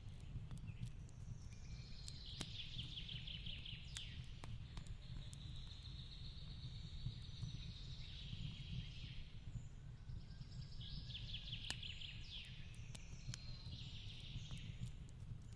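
Fireplace crackling, with scattered sharp pops over a low steady rumble. A songbird sings high trilled phrases in two bouts, one starting about two seconds in and another about eleven seconds in.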